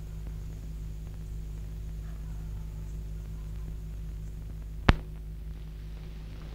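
A steady low hum, with a single sharp click about five seconds in.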